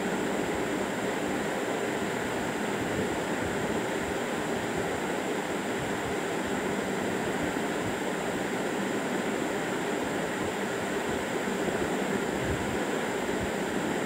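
Steady rushing background noise with no distinct events.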